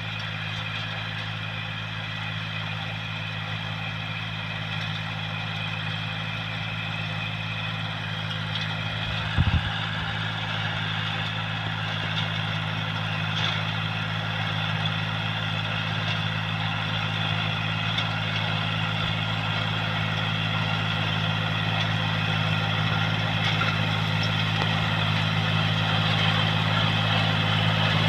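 Farm tractor with a rotary tiller, its engine running steadily and slowly growing louder over the stretch. A single short knock comes about a third of the way through.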